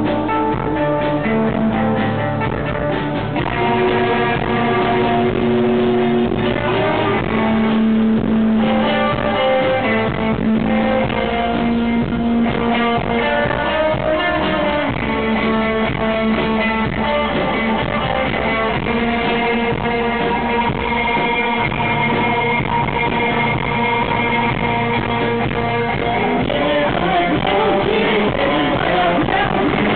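A live band playing, with guitar to the fore, held notes and a steady level throughout.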